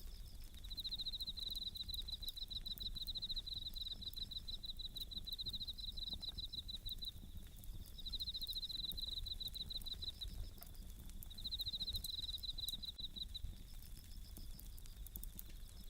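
Bell crickets (suzumushi) chirping in repeated bouts of fast pulsed trills, each lasting a second or two, over faint crackles from a wood campfire.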